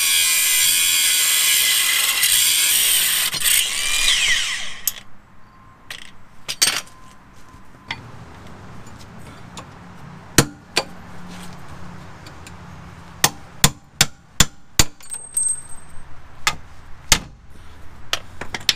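An angle grinder cuts steel at a Jeep's steering knuckle for about the first five seconds, then stops. Then come scattered hammer blows on the tie rod end, with a quick run of about five strikes in the middle and a few single knocks around them.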